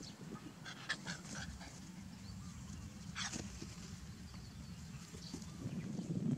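A dog giving a few short cries, about a second in and again just after three seconds, over a steady low rumble.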